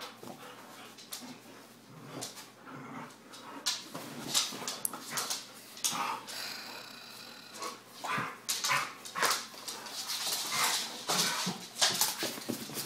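Two dogs, a Labrador and a Collie, play-fighting, with yips, whines and short barks over irregular scuffling and bumping.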